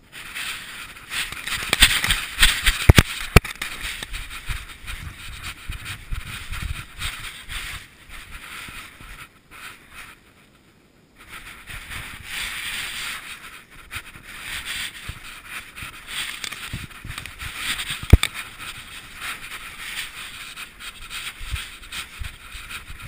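Rubbing, scraping and sharp knocks from a GoPro worn by a German shepherd as she moves about and noses in grass, the loudest knock about eighteen seconds in, with a brief lull about ten seconds in.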